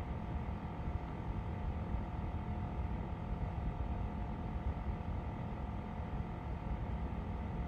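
Quiet room tone: a steady low rumble with a faint, even electrical hum.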